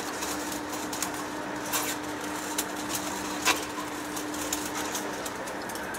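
Heavy-duty lathe turning a large shaft under cut, running with a steady hum and noise, with sharp clicks now and then, the loudest about three and a half seconds in.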